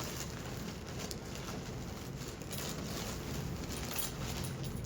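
Rustling and crinkling of a bedsheet set's packaging and cloth being handled, with scattered small clicks throughout.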